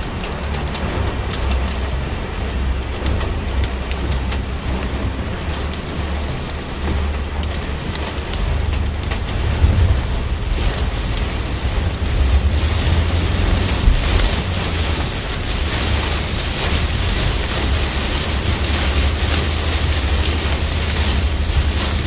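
Torrential rain drumming on a moving car's roof and windshield over a low road and engine rumble, growing a little heavier about halfway through.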